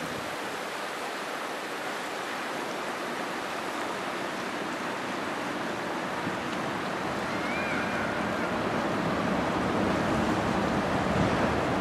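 Steady rush of waves and moving water, with wind rumbling on the microphone, growing a little louder toward the end.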